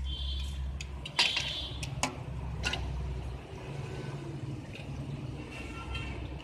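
A metal serving spoon clinking against a steel pan and a large aluminium pot, three sharp clinks with the first the loudest, over a steady low rumble of street traffic.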